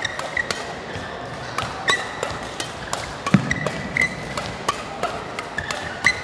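Fast badminton drill: rackets striking the shuttlecock in quick succession, about three or four sharp hits a second, with short squeaks and one heavier thud about three seconds in.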